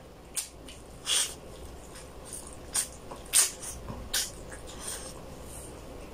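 Close-miked eating sounds from a person chewing braised chicken pulled off the bone by hand: wet lip smacks and chewing, with about five sharp smacks, the loudest about three and a half seconds in.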